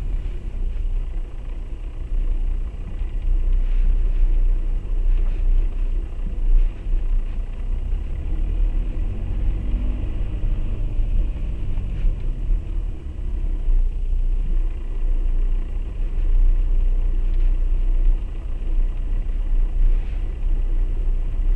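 Skoda Octavia A7 1.6 TDI four-cylinder diesel car driving under load with a steady low rumble, the extraneous noise the owner hears only when the car pulls under load.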